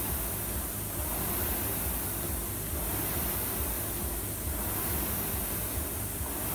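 Concept2 rowing machine's air-resistance flywheel whooshing under hard rowing, a steady rushing noise that swells and eases with each stroke.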